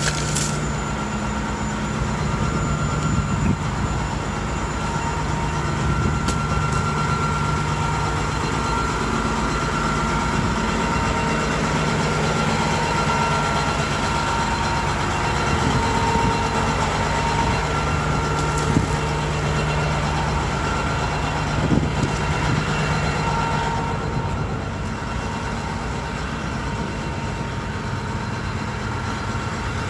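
Heavy diesel truck engine idling steadily: a low hum with a few steady higher tones over it, and a few brief knocks.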